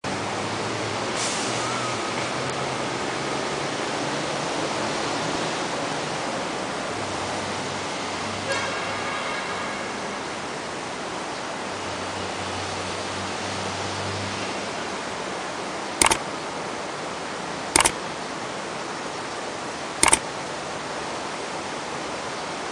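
Steady outdoor rushing noise with a faint low hum. Near the end there are three sharp clicks, about two seconds apart, which are the loudest sounds.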